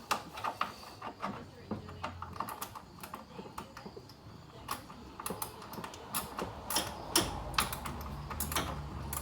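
Irregular light clicks and taps of a wrench and hand tools against metal as a 10 mm bolt on the cooling fan assembly is worked at, the clicks coming thicker in the second half.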